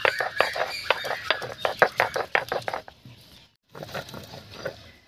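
Stone roller rocked over a flat grinding stone (sil-nora), crushing garlic and ginger into paste: a quick run of crunching knocks, about five a second, which stops about three seconds in, followed by fainter scraping after a short break.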